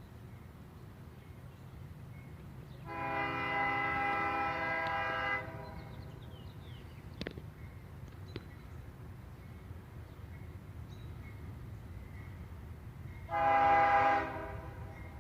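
Freight locomotive air horn of an approaching train sounding twice: one long blast of about two and a half seconds, then a shorter, slightly louder blast about eight seconds later.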